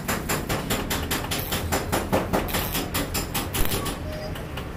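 Stick (arc) welding on a car's steel bumper: the arc crackles in rapid sharp snaps, about six a second, thinning out near the end.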